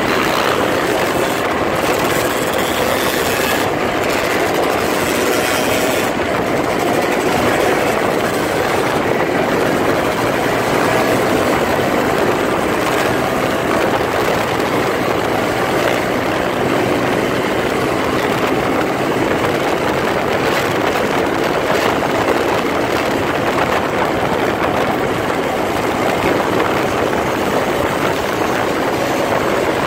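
Motorcycle engines running steadily at highway speed, mixed with a constant rush of wind over the microphone.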